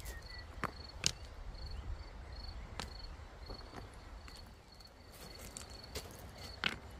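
River stones knocking and clacking against each other as they are set around the base of an upright wooden pole: a handful of sharp, separate knocks. Underneath, an insect, cricket-like, chirps steadily with a short high chirp two or three times a second.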